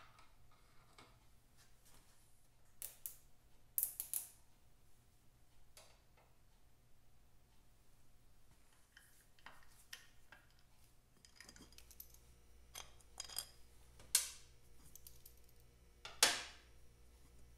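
Scattered light metallic clicks and clinks of hand tools and parts as a Vincent motorcycle's footpeg and rear brake pedal assembly is unbolted and moved aside. There are a few louder clinks about four seconds in and a sharper knock near the end.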